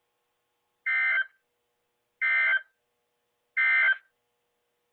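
Three short bursts of EAS SAME digital data tones, each under half a second with silence of about a second between them: the end-of-message code that closes a NOAA Weather Radio alert.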